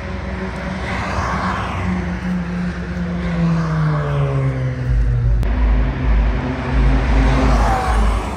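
Two cars driving past on a race track one after the other, each engine note falling in pitch as it goes by, with tyre and wind rush. A strong low rumble comes in about five seconds in.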